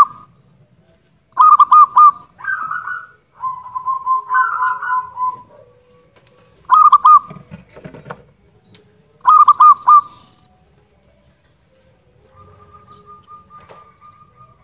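Zebra dove (perkutut) cooing: three loud phrases of quick repeated notes, plus the end of a fourth at the start, with softer rolling trills between them and a faint trill near the end.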